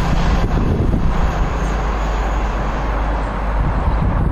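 Express passenger train passing through at speed and running away: a steady low drone over rushing wheel-and-rail noise, slowly easing as it recedes.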